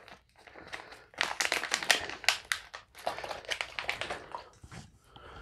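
Filled plastic ration beverage bag crinkling and crackling as it is handled and sealed shut, a quick run of crackles from about a second in until shortly before the end.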